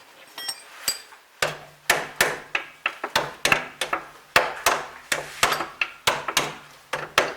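Hammer blows struck in a fast, irregular run, about three a second, after a couple of lighter knocks in the first second and a half.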